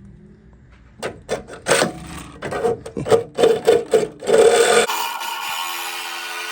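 Reciprocating saw cutting the sheet metal of a car's rear wheel tub, going in short uneven bursts from about a second in, then running steadily from near the end.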